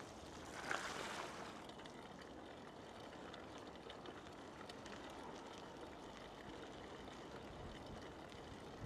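Faint steady rushing noise of a bicycle rolling along an asphalt path, with a brief louder whoosh about a second in.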